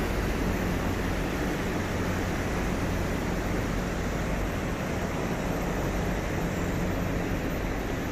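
Steady hiss with a low hum: the ambient noise of a railway station platform with an MTR train standing at it.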